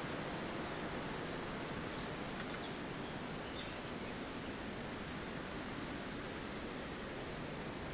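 Wind blowing through forest trees as a steady rushing noise, with a few faint bird chirps about three seconds in.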